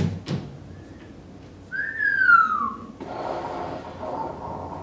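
A whistle sliding down in pitch, one call about a second long, after two sharp knocks right at the start.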